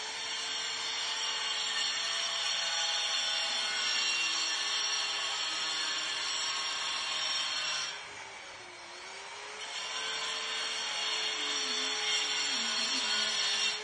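Electric power tool grinding marble: a steady motor whine under a loud, gritty hiss, its pitch sagging as the tool bites. The grinding drops away for about two seconds past the middle, then resumes.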